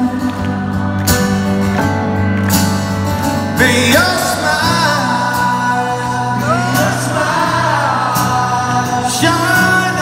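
Live rock band playing a slow ballad with sung vocals, over steady held chords; the sung melody comes in again about three and a half seconds in.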